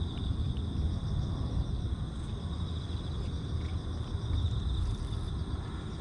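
Insects trilling in a steady high chorus over a low rumble on the action camera's microphone.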